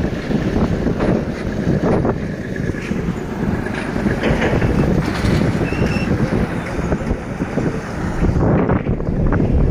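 Low, steady rumble of heavy diesel machinery working a landfill, mixed with wind buffeting the microphone.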